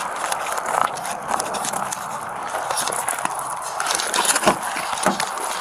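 Footsteps on a gravel road mixed with the rustle and scrape of clothing and gear rubbing against a body-worn camera's microphone, with scattered small clicks. A sharper knock comes about four and a half seconds in as the wearer reaches a car.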